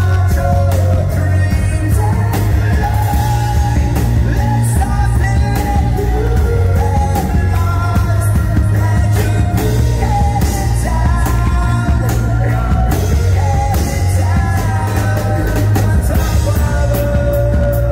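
Live rock band playing an acoustic arrangement, with cello, acoustic guitars, drum kit and keyboard under a lead singer's voice.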